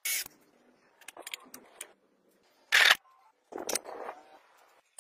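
Hands handling stiff plastic board pieces: a sharp scrape at the start, a few light clicks, a loud short rasp just before three seconds in, and another scrape and rustle around three and a half seconds.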